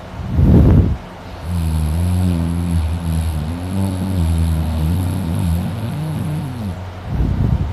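A man snoring very loud in deep sleep. There is a short harsh snort about half a second in and another near the end, with several seconds of steady, low-pitched snoring between them.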